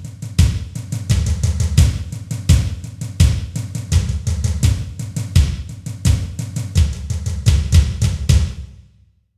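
Drum kit build-up: a fast stream of bass drum and snare hits, fading out near the end.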